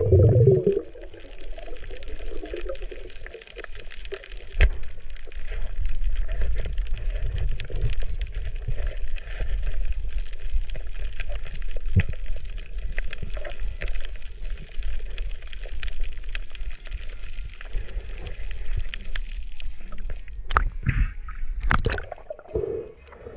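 Underwater sound picked up by a submerged camera: a steady low rumble and hiss of moving water, with scattered sharp clicks and a few louder knocks near the end.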